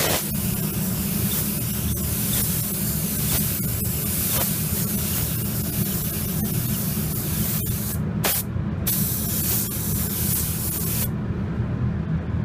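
Compressed-air paint spray gun hissing as it lays down paint in passes, cut off twice briefly about eight seconds in, then stopping about a second before the end. A steady low hum runs underneath.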